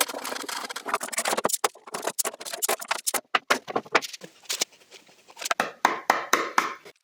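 Irregular clattering knocks and clicks of wooden workpieces being handled, in quick uneven succession with short pauses.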